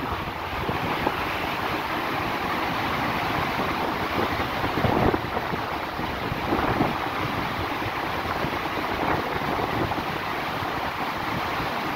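Churning white-water wake rushing behind a moving boat's stern, a steady roar of water, with wind buffeting the microphone in a few louder gusts.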